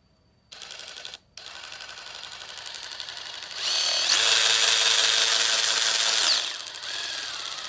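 RIDGID 18V brushless cordless 1/4-inch ratchet running under its variable-speed paddle trigger: a short burst, a brief stop, then a run that builds in speed, whines at full speed for about three seconds with the pitch rising into it and falling out of it, then eases back to a slower run.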